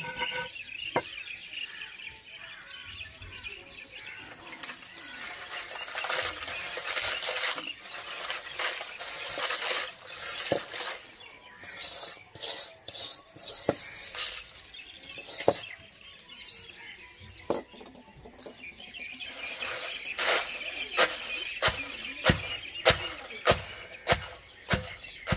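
Long wooden pestle pounding dried red chillies in a stone mortar. A few separate knocks come first, then a steady pounding rhythm of about three strokes every two seconds near the end.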